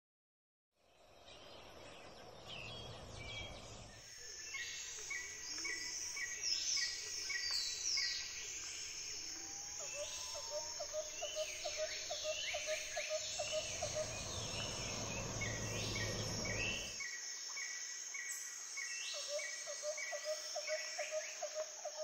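Many songbirds singing and calling at once over a steady high hum, with two spells of a fast, low trill of pulsed notes and a low rumble underneath at two points.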